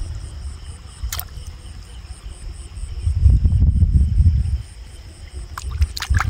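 Insects chirping steadily in a high, pulsing trill, over a low rumble on the phone's microphone that swells in the middle. A few small splashes of shallow water near the end.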